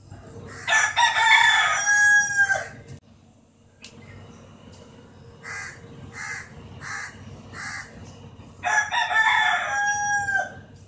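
A rooster crowing twice, about eight seconds apart, each crow ending in a long held note that drops off at the end.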